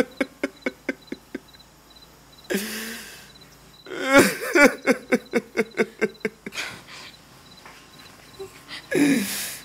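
A man sobbing: runs of quick, catching sobs about five a second, broken by long, drawn-out wailing breaths.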